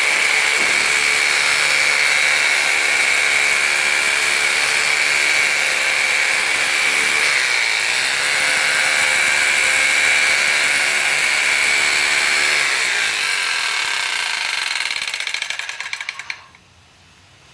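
Arbortech AS170 electric masonry saw running steadily with a high-pitched whine while cutting out brick mortar joints. Its sound weakens over the last few seconds and stops about sixteen seconds in.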